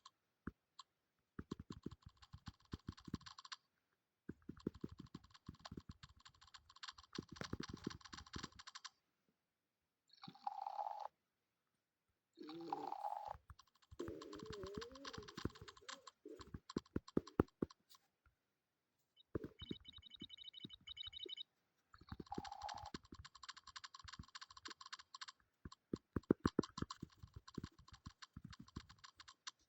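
Rapid key-press sounds from a custom phone keyboard app as keys are tapped quickly, a click with each tap, in runs of a few seconds separated by short pauses.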